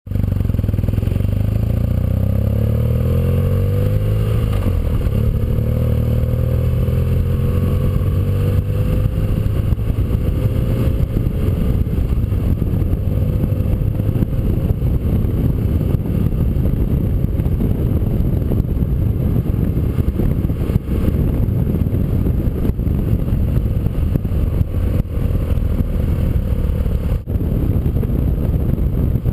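Motorcycle engine accelerating with rising pitch over the first few seconds, then running steadily at speed with a dense low rumble of engine and road noise.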